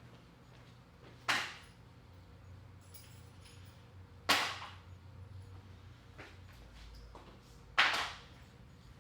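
Three sharp clacks of hard objects set down or dropped, a few seconds apart, each dying away quickly: tools being put away during a workbench cleanup.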